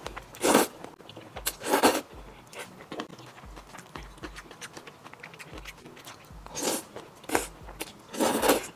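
A person slurping Nanchang mixed rice noodles in five loud noisy pulls, two near the start and three near the end, with soft chewing and mouth clicks between them.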